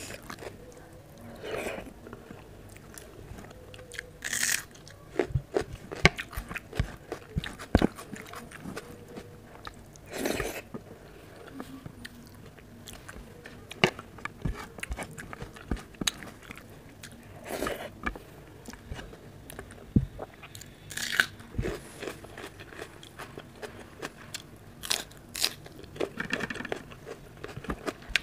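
Close-up eating sounds of a person eating moong dal and rice by hand: wet chewing and mouth noises as handfuls are eaten, with fingers squishing the rice and dal on the plate. Many small clicks are spread throughout, with five or six louder bursts.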